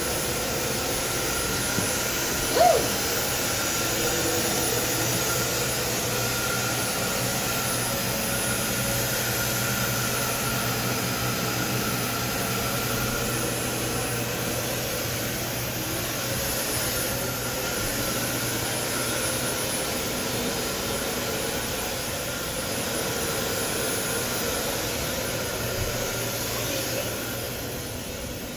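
Upright vacuum cleaner running steadily on carpet: a continuous drone with a steady hum. A brief, louder pitched squeak stands out about three seconds in.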